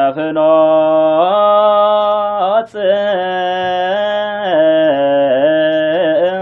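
A male chanter's solo voice singing Orthodox Tewahedo zema, holding long melismatic notes that step slowly up and down in pitch. There is a brief break for breath about two and a half seconds in.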